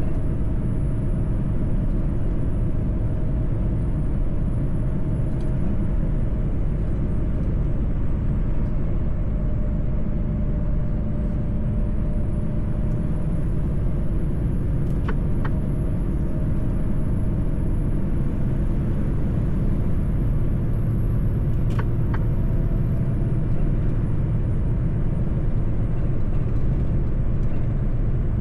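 Mercedes-Benz truck driving at a steady speed: a continuous low engine and road rumble, with a faint high whine that slowly drifts up and down in pitch. Brief ticks come about 15 and 22 seconds in.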